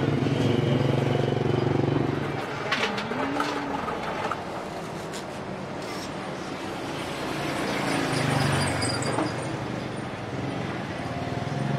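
Busy street noise with a motor vehicle's engine running close by for the first couple of seconds and another swelling and fading about eight seconds in, with a few sharp clinks about three seconds in.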